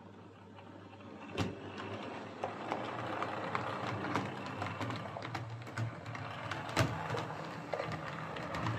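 Hornby Class 142 Pacer OO gauge model railbus running on its layout track on a test run after repair: a small electric motor whirring, with a low hum and scattered clicks and rattles from the wheels on the rails. The sound picks up about a second and a half in, at a sharp click, and there is another loud click near the end.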